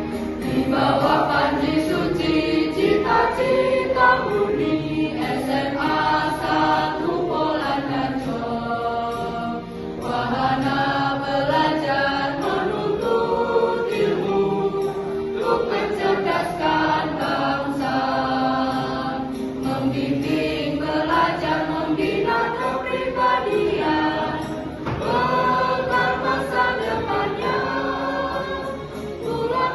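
Mixed school choir singing a march in unison and harmony, with sustained held notes and short breaths between phrases.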